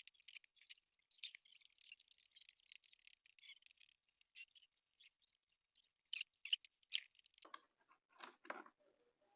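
Faint scratching and clicking of hands working on a laptop's case as it is opened up: a stretch of rapid, high scratchy sounds over the first few seconds, then several sharp clicks and a duller knock near the end.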